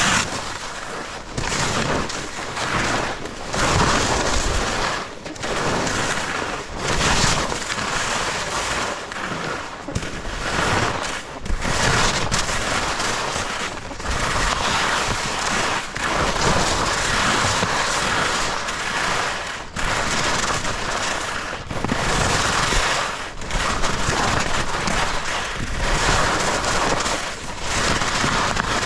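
Skis running over snow with heavy wind buffeting on the camera microphone, loud and uneven, in rushing surges broken by sharp crackles.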